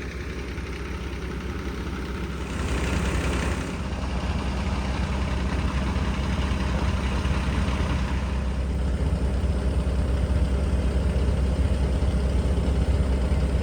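Steady low rumble of an idling vehicle engine, slowly growing louder, with a brief hiss about three seconds in.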